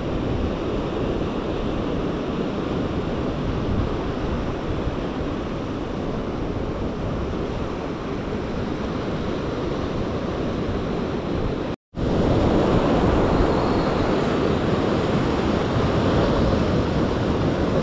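Sea surf breaking and washing over rocks along a rocky shore, a steady rushing hiss with some wind on the microphone. The sound cuts out for a moment about twelve seconds in, and the surf is louder after it.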